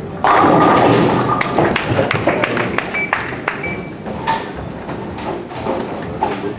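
Bowling ball hitting a rack of pins: a sudden loud crash, then pins clattering and knocking against each other and the pit for a few seconds.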